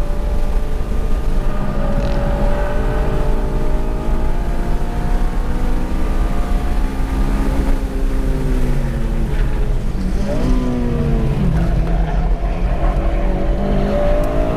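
Honda Civic Si's K20Z3 four-cylinder engine heard from inside the cabin at track speed, its pitch rising and falling as the car is driven hard, with a quick drop and climb in revs about ten seconds in. Wind and road noise lie under it.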